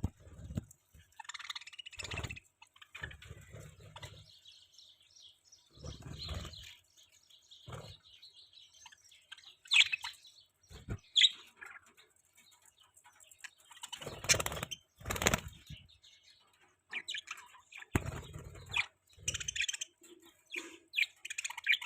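Pet budgerigars chirping in short, irregular chirps, with intermittent rustling thumps.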